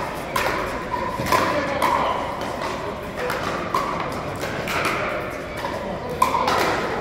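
Pickleball paddles hitting the hollow plastic ball: a string of sharp pops at irregular intervals from the rallies on several courts, echoing in a large indoor hall, with voices of players in the background.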